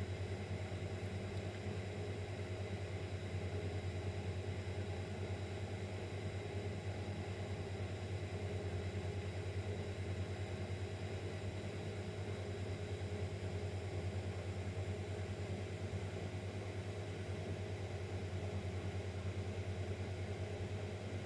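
Steady low hum with faint higher tones and a light hiss, unchanging throughout, with no other events.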